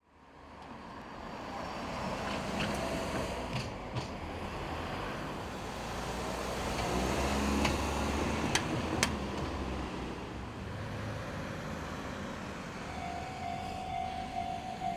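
Road traffic at a railway level crossing: vehicles passing with steady tyre and engine noise, a few sharp knocks, and a heavier low rumble about seven to nine seconds in. Near the end a steady electronic tone starts, the crossing's warning alarm.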